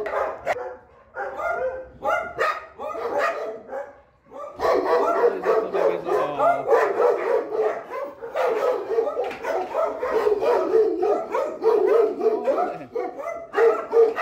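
Several dogs in kennel compounds barking at once, an overlapping chorus of barks. It is patchy for the first few seconds, dips briefly, then becomes a continuous din from about four and a half seconds in.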